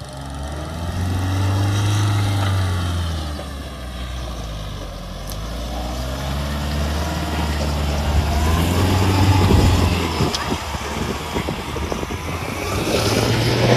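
Mahindra Thar 4x4's engine revving up and easing off twice as it drives through a wet, muddy field. From about eight seconds in, the engine is overlaid by rough, crackling tyre-and-mud noise, then settles to a steadier tone near the end.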